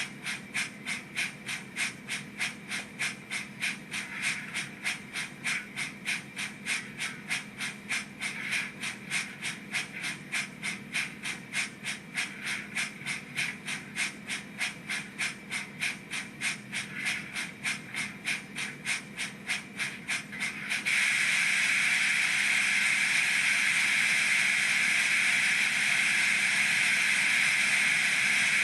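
A model steam locomotive's DCC sound decoder playing steady, even exhaust chuffs through the loco's small speaker. About three-quarters of the way through, a loud steady hiss cuts in suddenly and holds: the safety-valve sound function blowing off.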